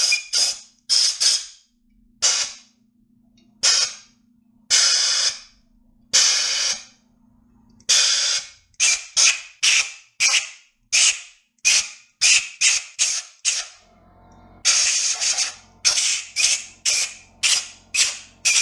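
Compressed-air blow gun fired in dozens of short hissing bursts, some quick and some held for about half a second, blowing out the main bearing saddles of a Mazda Miata 1.8 engine block to clear away solvent and debris.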